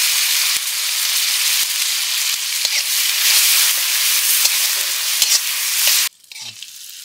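Tomatoes sizzling loudly in very hot oil with crushed garlic in the pan, with a few faint ticks from stirring. The sizzle cuts off suddenly near the end.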